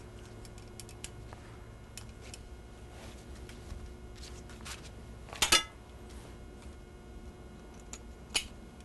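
Metal kitchen tongs clicking and clacking as husk leaves are pulled off a hot ear of corn on a wooden cutting board, with a louder clatter about five and a half seconds in and another near the end.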